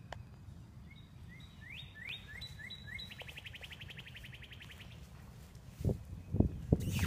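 A songbird singing: a run of rising chirps, then a fast even trill lasting about a second and a half. Near the end come several loud dull thumps, the loudest sounds here.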